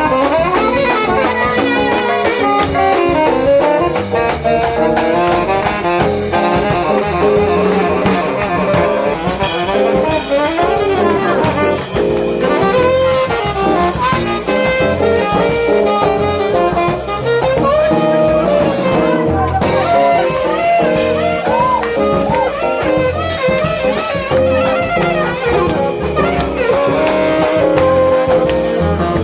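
Jazz quartet playing live, a horn melody over drums.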